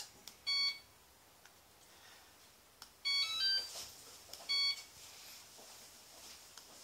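Hoverboard (self-balancing scooter) beeping in response to its remote key fob. There is a short electronic beep, then about three seconds in a quick run of rising tones, then another short beep about a second later.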